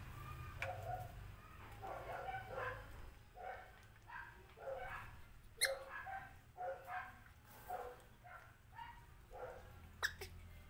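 Baby monkey eating with its face in a dish of milky food, making a quick run of short, faint sounds, about two a second. Two sharp clicks come about halfway through and near the end.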